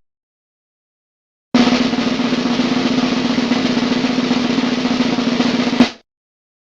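Snare drum roll sound effect, a steady rapid roll lasting about four seconds that starts after a second and a half of silence and ends on a single sharp hit.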